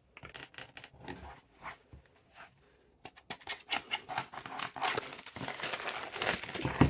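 Packaging being handled and unwrapped, crinkling and tearing: a few light scattered crackles at first, then dense continuous crinkling from about three seconds in.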